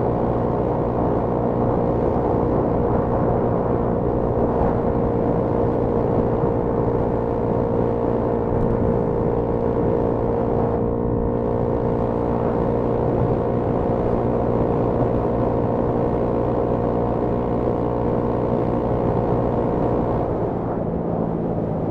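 Honda Grom (MSX125) 125cc single-cylinder four-stroke engine running at a steady cruising speed, with wind rushing over the helmet-mounted microphone. Near the end the engine note drops lower as the throttle eases off.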